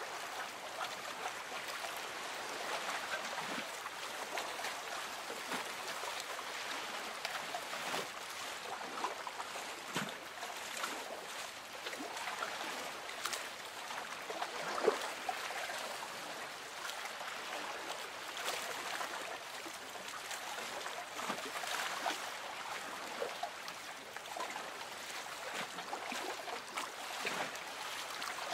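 Gentle lake water lapping and trickling, with scattered small splashes and plops, one louder plop about halfway through.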